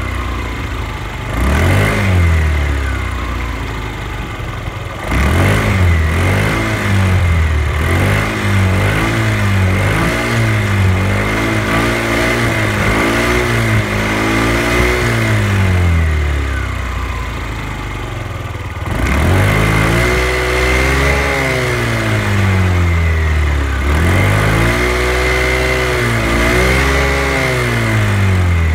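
50cc moped scooter engine idling and revved over and over with throttle blips, its pitch rising and falling again and again. The blips come quick and close together in the first half, then after a short lull near idle there are several longer, higher revs.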